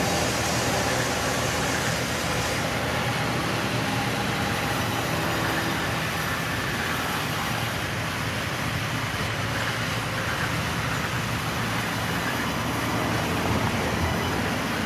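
Sawmill machinery, chiefly large vertical band saws, running steadily: an even, unbroken mechanical noise.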